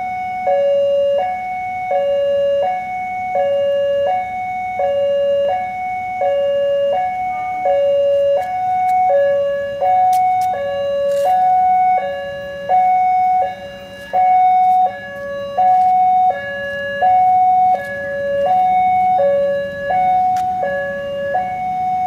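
Railway level-crossing warning alarm sounding its two-tone chime, alternating evenly between a high and a low note, each held about two-thirds of a second: the signal that a train is approaching and the crossing is closing.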